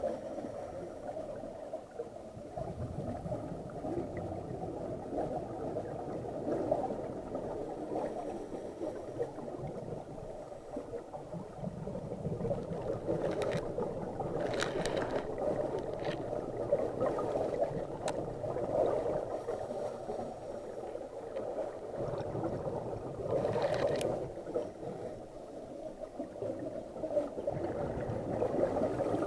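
Muffled underwater noise heard on a diver's camera, with the gurgle of a scuba diver's exhaled bubbles swelling every few seconds and a few sharp clicks.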